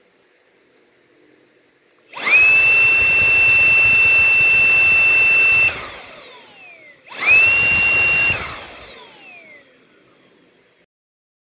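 Xiaomi Dreame V9P cordless stick vacuum's motor running at max speed: about two seconds in it spins up to a loud, steady high whine with rushing air for about three and a half seconds, then switches off and winds down with a falling whine. It starts again about seven seconds in, runs for about a second and winds down again.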